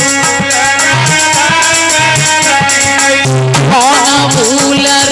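Live Indian folk devotional music. A dholak beats a steady rhythm with deep bass strokes that slide up in pitch, a chimta's metal jingles rattle along, and held melodic chords sound over them.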